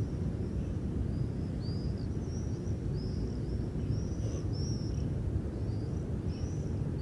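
Outdoor ambience: a steady low rumble, with small birds chirping short, repeated high phrases over it.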